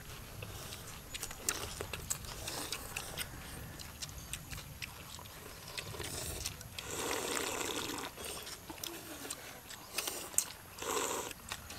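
Several people eating noodles and soup from bowls: light clicks of chopsticks and spoons on the bowls, with a long slurp about seven seconds in and a shorter one near the end.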